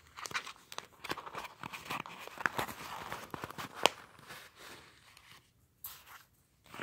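Clear plastic sheet protector crinkling and rustling under fingers as stickers inside it are pressed and worked loose. Scattered irregular clicks throughout, one sharper click about four seconds in, and the handling dies down near the end.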